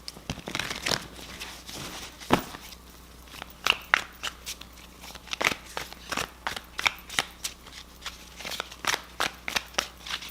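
Tarot deck being shuffled by hand: a run of quick card snaps and rustles, sparser at first and coming about three a second in the second half.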